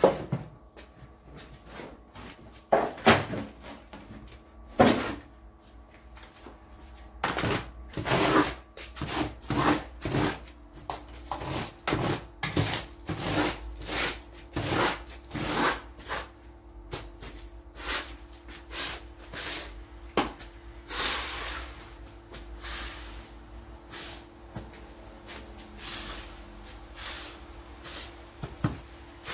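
A couple of sharp knocks, then a long run of short scraping strokes, about one every second: a long-handled floor squeegee pushed over wet paving stones, shoving water and slushy snow.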